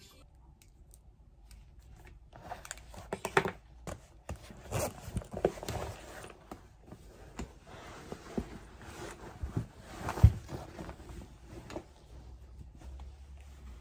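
Things being packed into a cloth tote bag: rustling fabric and objects shuffled about, with scattered light knocks, the sharpest about ten seconds in.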